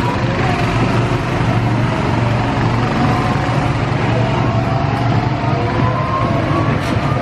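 Go-kart engines running steadily, with one engine's whine rising in pitch from about halfway through as a kart accelerates.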